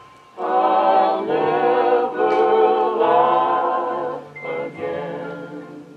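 Vocal music: singing in long held notes with a wavering vibrato, in two phrases, the second short and starting just after the middle, over faint sustained mallet-percussion tones.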